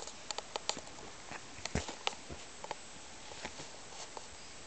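Saluki puppies shifting against the camera, giving scattered soft clicks, taps and rustles, with one firmer knock a little under two seconds in.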